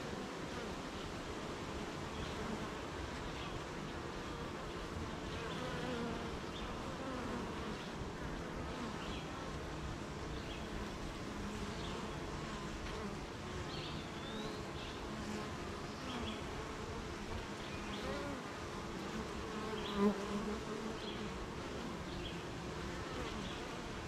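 Honeybees buzzing at a hive: many overlapping wingbeat hums that waver up and down in pitch as the bees fly about. One buzz comes briefly louder near the end.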